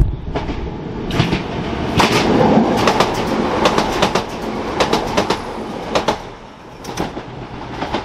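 Diesel multiple-unit train passing close by along the platform, its wheels clicking over the rail joints above a steady rumble. The clicks thin out and the sound eases after about six seconds, with a last pair of clicks about a second later.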